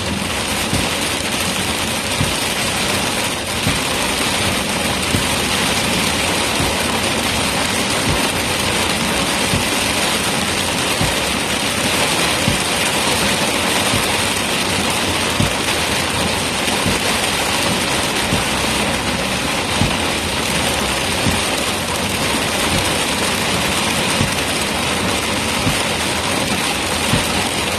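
Heavy rain hitting a moving car's roof and windshield, a loud steady hiss with road and engine noise beneath it.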